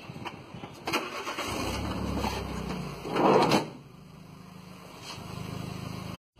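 Minibus engine running at idle with a low steady hum, while knocks come from a plastic pet carrier being loaded through the side door. The side door is shut about three seconds in, which is the loudest sound.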